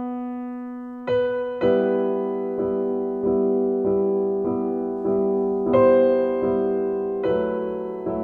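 Slow, soft solo piano music: chords and single notes struck about once a second and left to ring and fade.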